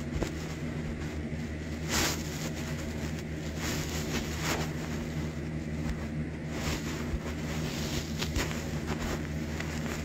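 A steady low hum with a few faint clicks and rustles scattered through it.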